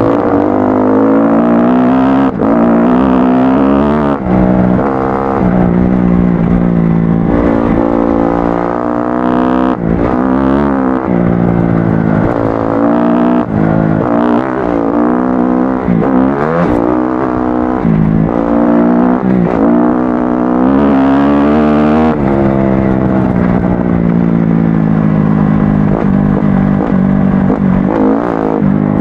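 Kawasaki KX-F four-stroke dirt bike engine being ridden off-road, its revs rising and falling over and over as the throttle is opened and closed.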